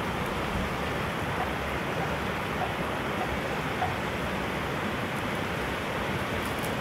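Steady rushing of water spilling over a low concrete weir, an even hiss with no breaks.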